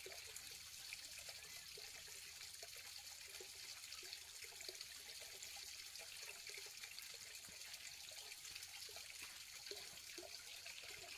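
Faint trickle of running water, steady and low, with a few small soft sounds over it.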